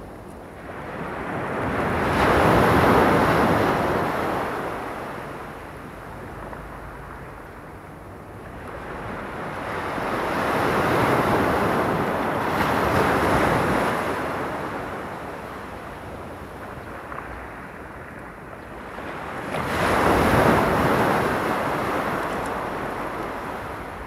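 Small sea waves breaking and washing up the shore, three times, each swelling and fading over several seconds.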